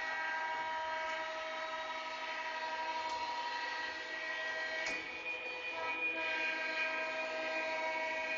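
Lionel Legacy O-gauge diesel locomotive's onboard sound system blowing its multi-note horn in two long blasts, with a short break about five seconds in.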